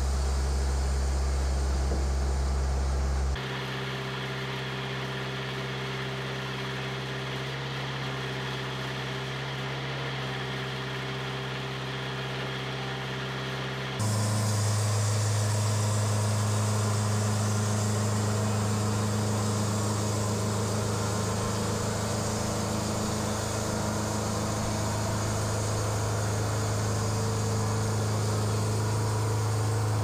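Wood-Mizer band sawmill's engine running steadily. The sound changes abruptly twice, about three seconds in and again about fourteen seconds in.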